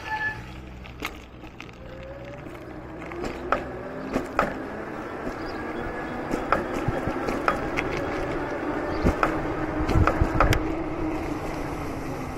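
Aipas C2 e-bike rolling along a cracked concrete street, its tyres knocking irregularly over the slab joints and cracks, with a steady rolling rumble and wind on the microphone.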